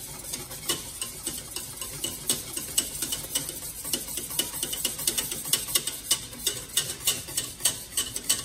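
A metal whisk beating thickening chocolate pastry cream in a stainless steel saucepan, its wires clinking against the pot's sides and bottom in a quick, even run of strokes, several a second.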